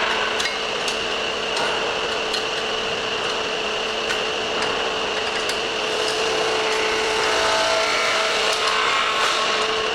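MM2020 BCS15220 belt cylinder sander running, a 1.5 kW machine with a 200 mm belt over an air-inflated drum, its belt rubbing and rasping on wood. It makes a steady hum with a high whine and scattered light ticks.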